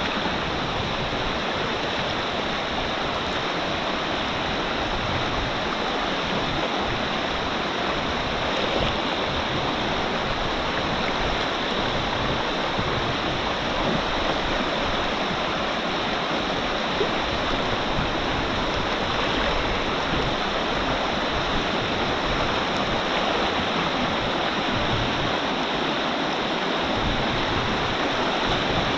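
Rushing water, a steady even noise.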